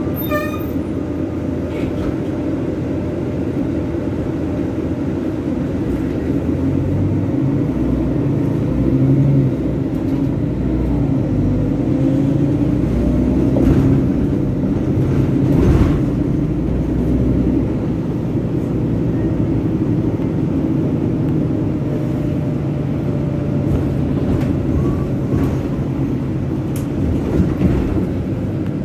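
City bus running, heard from inside the passenger cabin: a steady engine drone with road noise, its pitch rising and falling as the bus moves off and changes speed.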